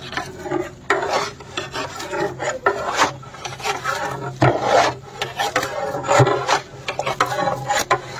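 Long metal stirrer scraping and rubbing against the inside of a large metal cooking pot as chicken and masala are stirred, in irregular scraping strokes over a low steady hum.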